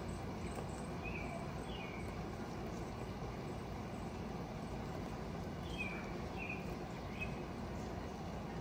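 Outdoor ambience: a steady low rumble with a few short bird chirps, a small group about a second in and another from about six to seven seconds in.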